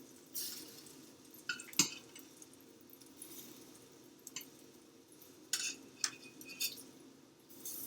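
Kitchen utensils clinking against a pan and dishes: a few scattered light clicks, the sharpest about two seconds in, over a faint steady hum.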